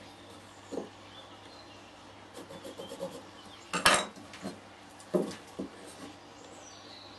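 Pieces of scrap wood being handled and marked out for lap joints: light rubbing and scraping with scattered wooden knocks. The loudest is a sharp knock about four seconds in, followed by two more about a second later.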